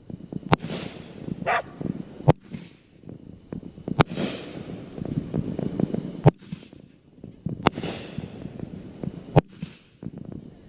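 Fireworks going off: six sharp bangs a second or two apart at an uneven pace, several followed by a brief crackling hiss.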